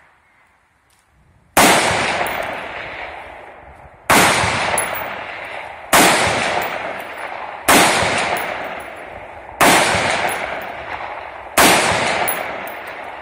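Six single shots from an AR-15 rifle, fired one at a time about two seconds apart, each sharp crack followed by a long echo that fades over a couple of seconds.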